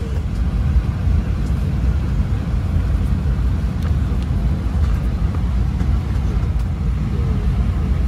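Steady low rumble inside an Airbus A320 cabin on the ground before departure, from the aircraft's air and engine noise.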